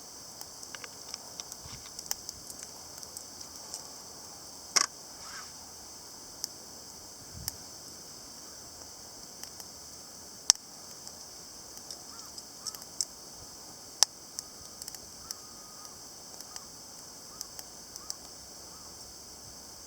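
Wood fire crackling in a charcoal chimney starter: scattered irregular pops and snaps over a steady high hiss, with a few louder snaps about five, ten and fourteen seconds in.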